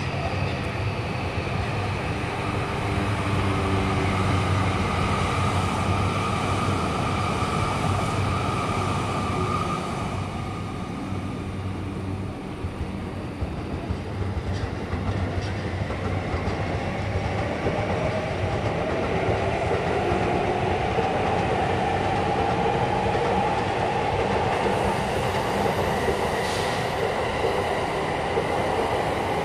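Electric trains running past on the tracks, a continuous rumble of wheels on rail, with a whine that rises in pitch through the second half.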